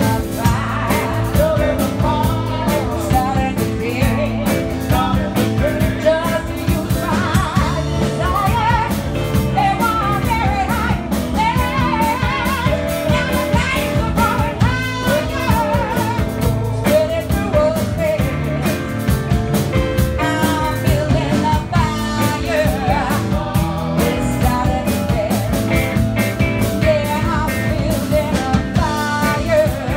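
Live band playing a song: a woman sings lead over strummed acoustic guitar, electric guitar, bass guitar and drums.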